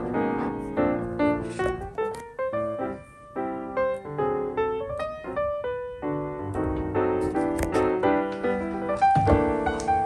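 Background piano music: a light melody of separate notes over chords.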